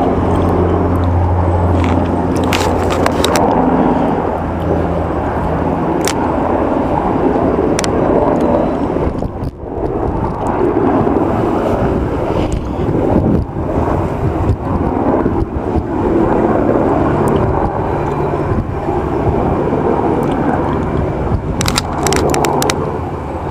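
Steady, loud rumbling noise of a moving vehicle, with a low hum over the first few seconds and a brief dip about nine and a half seconds in.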